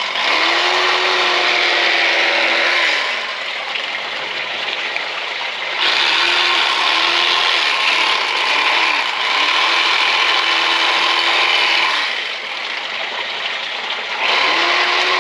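Electric fillet knife cutting fish, its motor running in bursts of a few seconds with a few short blips in the middle. At each start it whines up to speed and at each stop it winds down, with a harsh rasp from the blades sawing through the fish.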